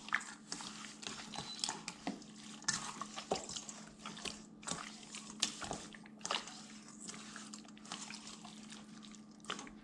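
Chicken leg quarters being mixed by hand in a liquid marinade of soy sauce and calamansi juice: irregular wet squishing, sloshing and dripping, over a faint steady hum.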